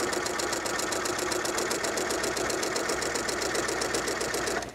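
Janome 3160 computerized sewing machine stitching at a steady fast speed, an even rapid rattle of needle strokes that stops just before the end.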